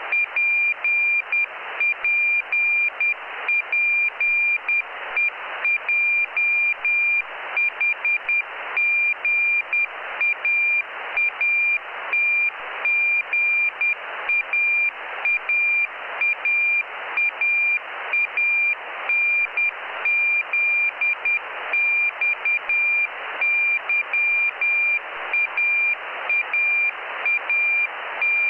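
Jugnu cubesat's Morse code (CW) telemetry beacon received on a radio: a single high tone keyed on and off in quick dots and dashes over a steady hiss of receiver noise.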